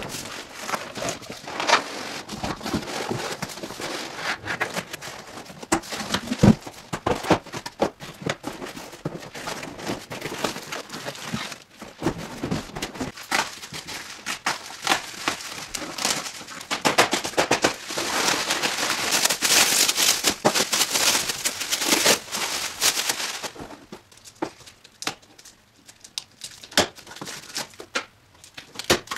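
Cardboard packaging and plastic bubble wrap being handled and pulled off a 3D printer: continuous rustling and crinkling with scattered knocks, busiest about two-thirds of the way through, then thinning to sparse crackles near the end.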